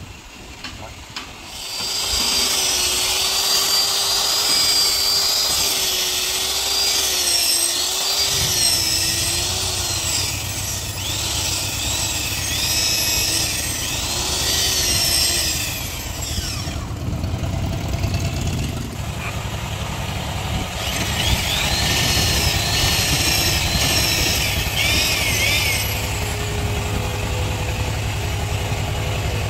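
Corded electric hand drill with a long wood bit boring into the hardwood timber of a wooden fishing boat's bow. The motor whines under load, its pitch wavering as the bit bites, and stops briefly about halfway before drilling resumes. A low engine hum joins in about 8 seconds in.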